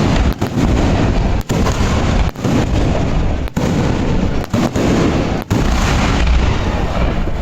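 A fireworks display going off in quick succession: overlapping booms and bursts merge into a loud, continuous din, strongest in the low rumble. The sound drops out for an instant several times.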